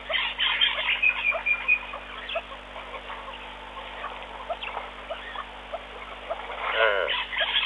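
Many short chirps and calls of small wild animals, birds and frogs, with a thin whistled trill about a second in and a louder call with stacked tones near the end. A steady low hum runs underneath.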